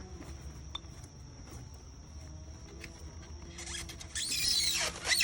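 Faint background for the first few seconds, then from about four seconds in a loud scraping rub with high squeaks: foam ICF block being handled, squeaking against another block.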